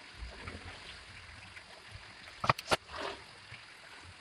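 Two sharp clicks about two and a half seconds in, a quarter second apart, followed by a brief rustle: parts of a toy electric bicycle being handled and fitted together during assembly.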